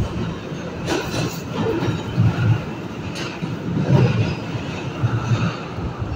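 New York City subway A train heard from inside the car, running through the tunnel with a steady low rumble and a few sharp wheel knocks over the rail joints, about one, three and four seconds in. The train is nearing its next station, Grant Avenue.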